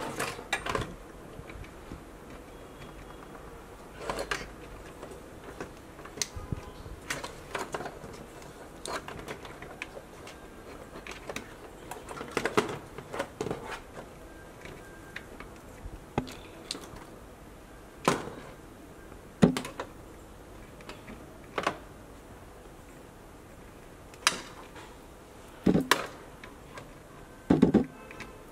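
Plastic wiring-harness connectors and cables clicking and rattling as they are handled and plugged into the back of a car navigation head unit: irregular sharp clicks and knocks, a few of them louder near the end.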